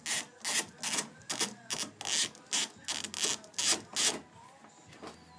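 Socket ratchet clicking in short back-and-forth strokes, about two to three a second, as a 10 mm socket backs out a headlight mounting bolt. The clicking stops about four seconds in.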